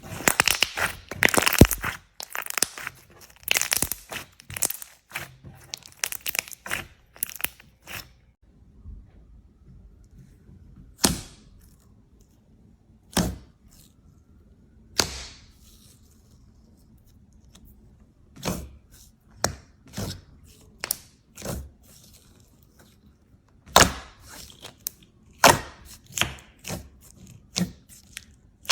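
Slime being pressed and worked by hand, crackling and popping. There is a dense run of crackles over the first several seconds, then single sharp pops every second or two.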